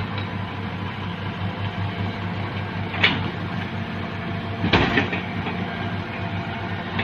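Excavator's diesel engine running steadily, with two sharp clanks about three seconds and five seconds in.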